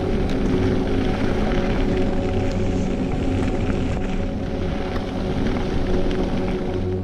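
Mountain bike rolling fast down a gravel forest track: a steady rush of tyre and wind noise over background music with steady held tones.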